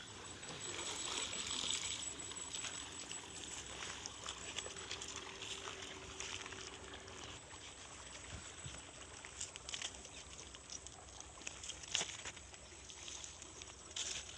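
Shallow stream water trickling and splashing as hands work in it, then a few sharp clicks and scrapes of hands handling things on dry ground.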